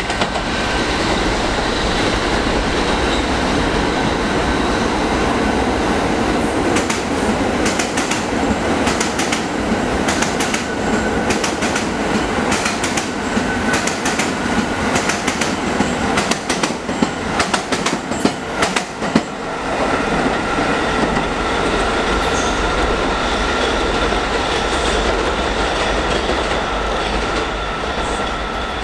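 New York City subway train running through the station, its steel wheels clattering over rail joints and switches in a rapid run of clicks through the middle, over a thin steady whine.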